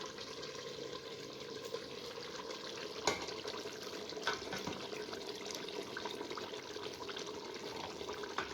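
Pot of chicken cooking in its marinade and water on the stove, simmering with a steady bubbling hiss and small crackling pops, with a sharper click about three seconds in.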